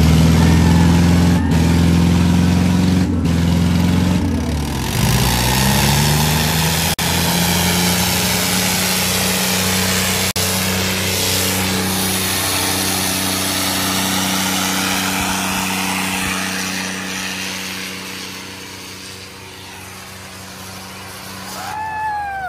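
Heavy diesel tractor engines running hard under full load in a tractor tug-of-war, their pitch dipping and recovering about four seconds in. A broad rushing noise builds over them, and the sound fades toward the end.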